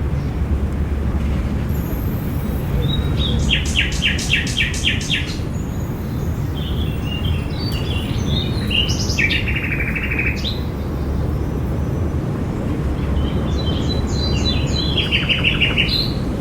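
Songbirds singing over a steady low background rumble, with rapid trills of repeated notes about three seconds in and near the end, and a chattering phrase in between.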